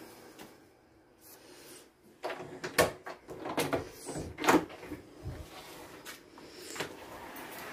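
A run of knocks and rattles, the two loudest about three and four and a half seconds in, as a heavy pinecone wreath is set down and a door is unlatched and opened. A single latch click follows near the end.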